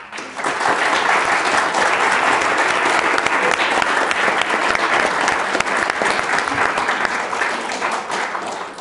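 Audience applauding after a speaker finishes. A dense patter of many hands clapping starts at once and holds steady, then dies down near the end.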